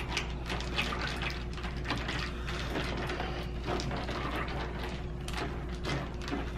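Metal spoon stirring dry kibble soaking in liquid in a stainless steel pan: a wet stirring sound with many small irregular clicks as the spoon and pellets knock against the pan.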